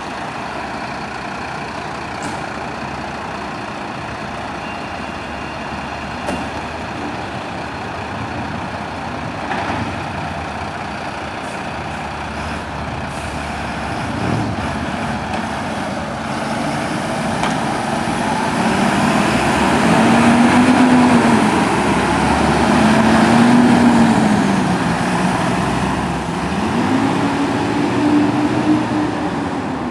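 Diesel engines of two fire trucks, a rescue pumper and a telescopic-mast aerial platform, running steadily, then revving louder as the trucks pull away. The engine pitch rises and falls several times with gear changes in the second half.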